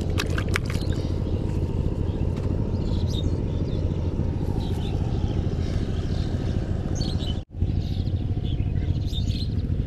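A motor drones steadily, with birds chirping over it. The sound cuts out for a moment about seven and a half seconds in.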